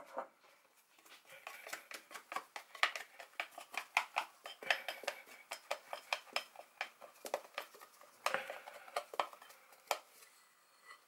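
Plastic dough scraper scraping dough out of a bowl: a rapid series of clicks and taps against the bowl, about two to three a second, easing off near the end.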